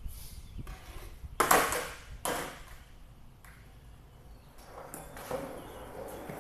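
A skateboard clacking sharply onto a concrete floor twice, about a second and a half in and again a second later, each hit echoing briefly. Its wheels then roll along the concrete toward the end.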